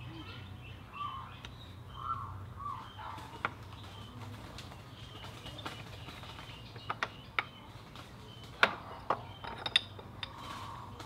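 Scattered sharp metallic clicks and clinks as a Yamaha Zuma 125's rear drum brake shoes and return springs are worked off the backing plate, the loudest coming about two-thirds of the way in. Birds chirp briefly in the background over the first few seconds, over a steady low hum.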